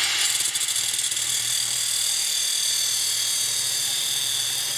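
Angle grinder cutting into stainless steel: a steady, loud, high grinding hiss over the whine of the spinning disc.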